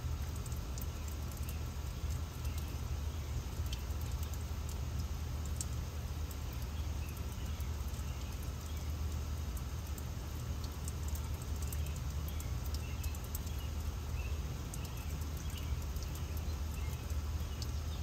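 Steady garden ambience: a low rumble under an even hiss of a water fountain, with faint scattered chirps of insects and birds.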